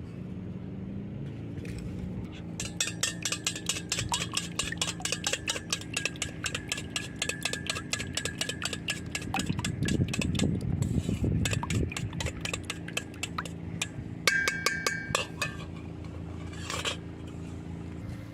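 A metal utensil beating rapidly against a metal bowl, several ringing clinks a second, as when whisking or mixing ingredients by hand. It starts a couple of seconds in, with a few harder knocks near the end before it stops.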